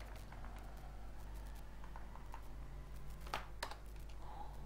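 Computer keyboard keys pressed a few at a time while code is deleted and selected in an editor, with two louder key strikes a little after three seconds in.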